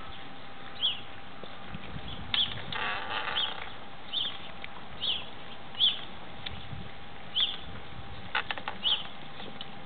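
Weimaraner puppies eating meat together from one bowl: chewing and lapping with a few sharp clicks against the bowl, and a brief whimper about three seconds in. Short high chirps recur about once a second over it.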